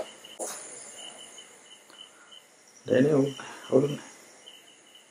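Crickets chirping in a steady run of short, high chirps, about five a second. A person's voice sounds briefly twice, about three and four seconds in, louder than the crickets.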